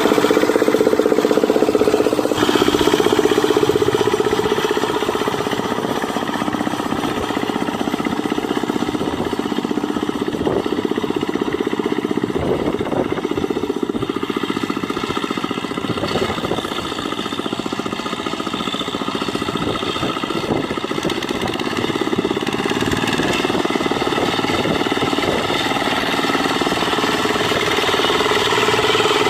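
Single-cylinder Dongfeng diesel engine of a Quick Impala two-wheel hand tractor running steadily with a rapid, even chugging. It eases off a little in the middle and comes up again near the end.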